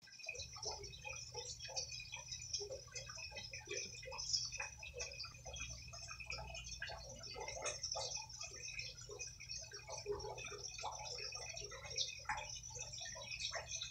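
Red-footed tortoise biting and chewing soft, wet fruit and lettuce: a run of irregular wet clicks and smacks, over a low steady hum.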